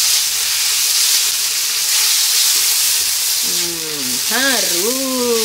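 Deboned chicken feet, bell pepper strips and celery sizzling steadily in hot oil in a wok while a spatula turns them.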